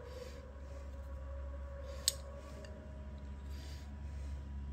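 Metal bar-end mirror arm and its bolt being handled: faint rustling and one sharp click about two seconds in, over a steady low hum.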